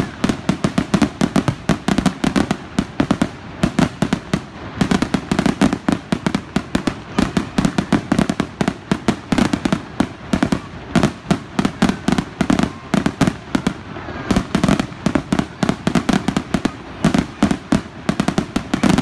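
Aerial fireworks finale: a continuous rapid barrage of loud bangs and crackling bursts, many reports overlapping each second with no real pause.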